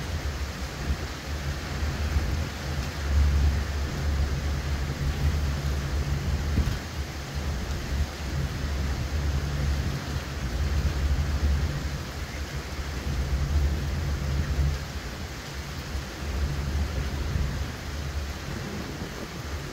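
Hurricane wind and heavy rain. The wind gusts as a deep rumble that swells and eases every few seconds over a steady hiss of rain.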